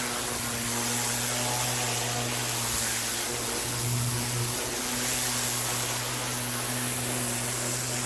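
Pressure washer running steadily: a constant motor hum under the hiss of its high-pressure water jet cleaning imprinted concrete.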